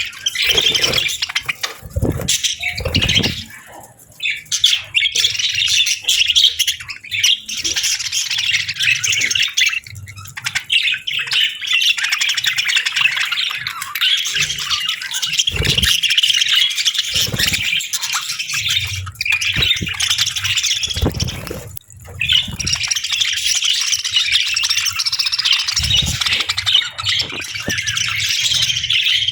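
A group of budgerigars chirping and chattering continuously, with scattered low thumps mixed in.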